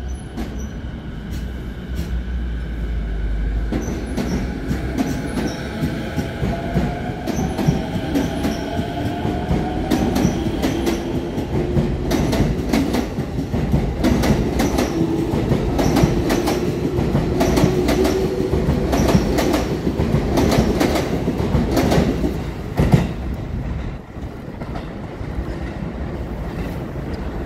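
JR East electric commuter train pulling out of a station, its traction motors whining up in pitch as it accelerates. Its wheels clack over rail joints more and more often as it speeds past, with one loud clack near the end before the sound falls away as the train leaves.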